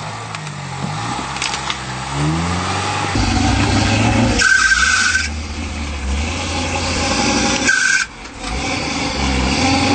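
Lifted Jeep's engine revving in bursts and labouring as it crawls up a rutted, rocky trail, growing louder as it comes closer. A brief high squeal sounds twice, a few seconds in and again near the end.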